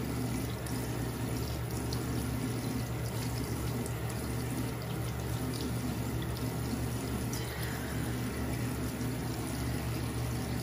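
Bathroom sink tap running steadily while water is splashed onto the face with the hands to rinse off face wash.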